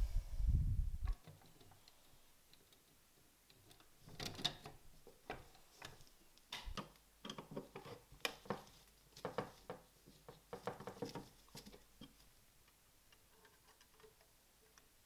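A low thump at the start, then an irregular run of small clicks and taps from small parts being handled, which dies away near the end.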